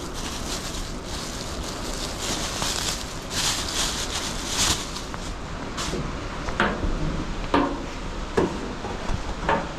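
A plastic bag rustling as it is handled, then a few sharp knocks about a second apart, over a steady rush of hurricane wind and rain.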